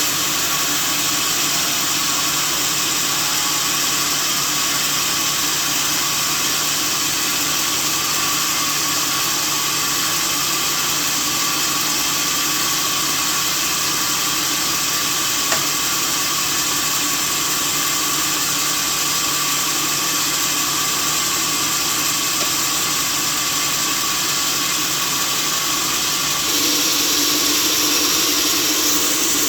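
Sawmill machinery running steadily, a constant mechanical noise with a steady hum and whine, one short click about halfway through; the sound shifts and grows a little louder near the end.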